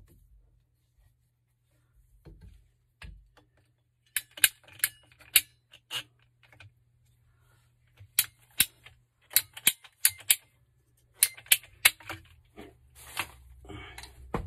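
Ratcheting PVC pipe cutter clicking sharply as its handles are squeezed to cut through a plastic water pipe. The clicks come in three runs, a few a second, with a short scraping stretch near the end.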